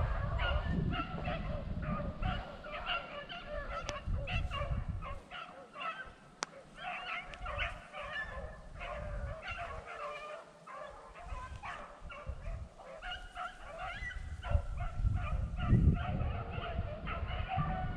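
A pack of beagles baying in an overlapping chorus, the sound of hounds running a rabbit's track. Gusts of wind rumble on the microphone, loudest at the start and again near the end.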